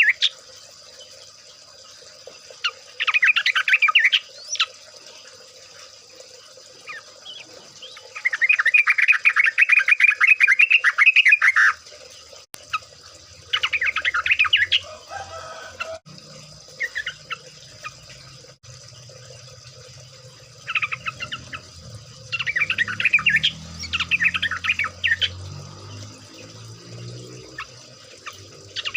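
Yellow-vented bulbuls (trucukan) giving bursts of rapid, chattering song every few seconds, the longest lasting about three seconds. A low hum runs under the second half.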